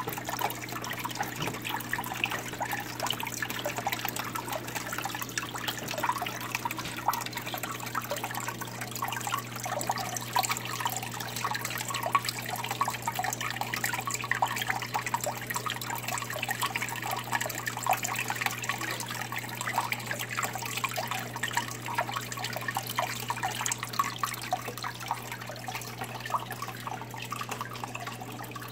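A small paludarium waterfall trickling and splashing steadily into the pool below, over a steady low hum.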